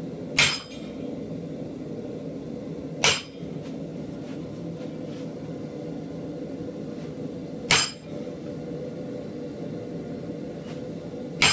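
Hammer blows on a blacksmith's butcher tool, driving it into hot steel held in a vise to chase detail into a forged animal head. There are four single sharp metallic strikes a few seconds apart, each with a short ring, the last one near the end.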